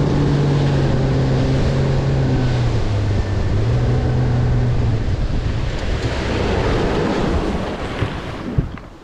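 Small boat's outboard motor running under way, with wind buffeting the microphone and water rushing past the hull. The engine note drops about three seconds in, and the run eases off near the end.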